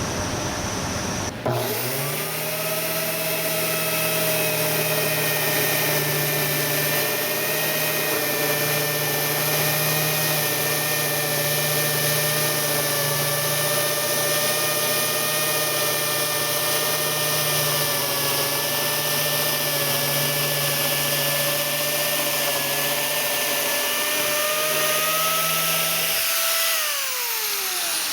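A motor starts suddenly about a second and a half in and runs with a steady whine of several tones over a low hum for about 25 seconds. Near the end its pitch falls as it winds down.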